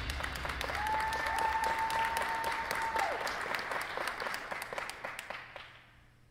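Audience applauding, dense clapping that thins out and fades away near the end. About a second in, one long steady high note, a whistle or held cheer from the crowd, rises over the clapping for about two seconds.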